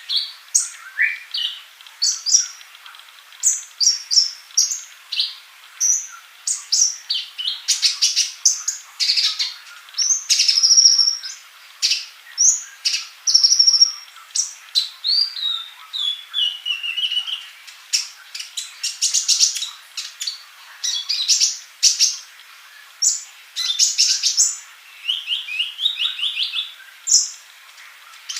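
Male sunbird (sold as 'Kolibri Ninja') singing without a break: a fast run of high, thin chirps, short twittering glides and quick rattling trills.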